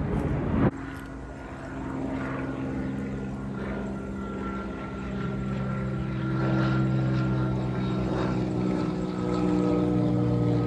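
Military propeller airplane flying overhead, its engine drone steady and swelling in level twice as it passes. Under a second in, a loud rushing noise cuts off abruptly.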